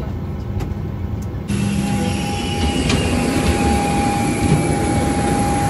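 Steady rumble of cabin noise inside an airliner, with no talking. About a second and a half in there is an abrupt cut, after which the noise is louder and a steady high whine runs on top of it.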